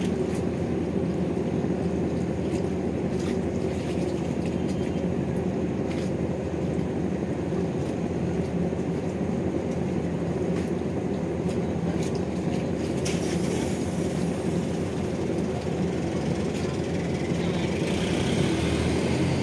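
A ship's engine running with a steady, low rumble, as the vessel Nusantara 100 comes in to dock.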